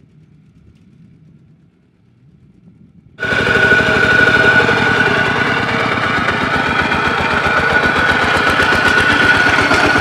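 Two-wheel walking tractor's small single-cylinder engine running while it plows, heard close up as a loud, rapid, steady putter. It cuts in suddenly about three seconds in, after a faint low rumble.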